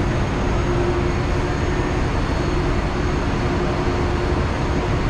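Steady running noise of a moving vehicle, with a constant low hum.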